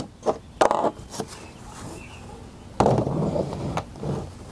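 Loose saw chain clinking and the plastic body of a Ryobi electric chainsaw knocking on the table as it is handled. The chainsaw is not running. The result is a series of sharp clicks and clatters, busiest a little under three seconds in.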